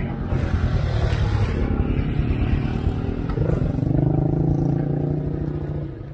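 Single-cylinder motorcycle engine revving under load as the bike is ridden up a steep off-road climb; the revs rise about three seconds in, hold, then drop near the end.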